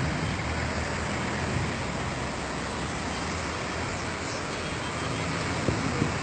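Floodwater of a swollen river rushing, a steady even noise with no pauses.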